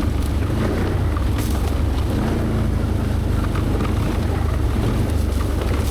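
ATV engine running at a steady, low trail speed, a deep even hum, with scattered light clicks and rattles from the machine over rough ground.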